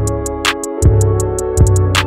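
Background music with a steady beat: deep drum thumps, quick high ticks and held chords.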